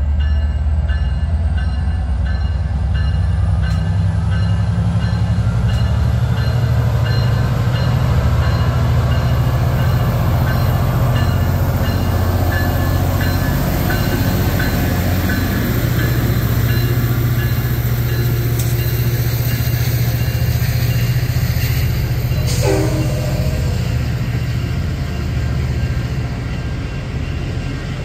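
A train running close by: a heavy, steady low rumble from the passing train, with a short sharp sound about 22 seconds in and the rumble easing slightly near the end.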